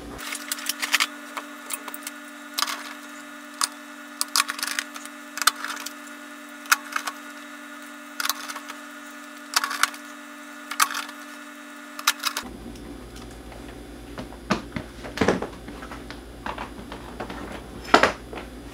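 Screws being fitted with a screwdriver into the metal shield over a TV's main board: irregular sharp clicks and taps of screwdriver tip and screws on sheet metal, a few every second.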